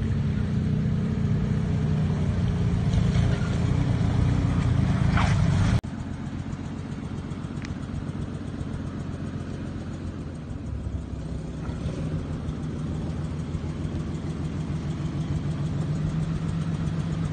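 A 1988 Nissan Pathfinder's engine pulls the truck through deep water. The sound cuts off abruptly about six seconds in and gives way to the same engine idling steadily with an even pulse.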